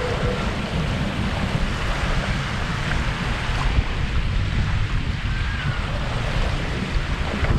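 Wind buffeting the microphone, with small lake waves washing against the bank.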